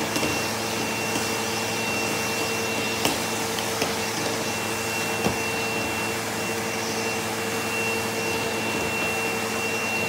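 Sebo vacuum cleaner running steadily, sucking air through the hose and Dyson groom tool as the tool is brushed through a long dog coat. The rush of air carries a steady high whine. A few light clicks come through the middle.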